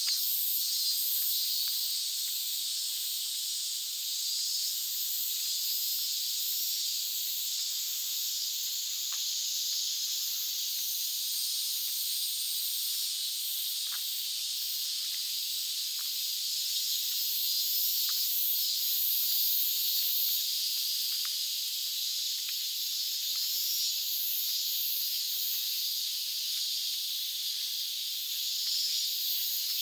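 Chorus of cicadas: a dense, high-pitched shrill that swells and fades in slow pulses, with a few faint ticks now and then.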